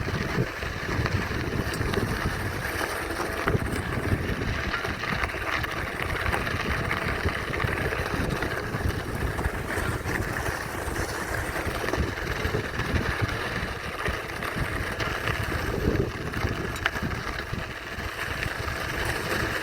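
Wind buffeting the microphone: a steady, gusty rumble with no pauses.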